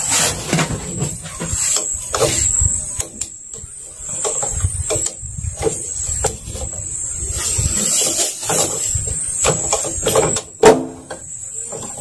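Irregular knocks and clicks of hand tools and parts as a Yamaha 40 hp outboard motor is taken apart, with one sharp, louder knock about ten and a half seconds in.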